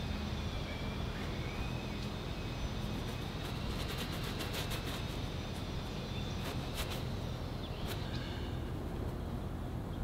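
A steady low rumble with scattered light clicks and ticks over it.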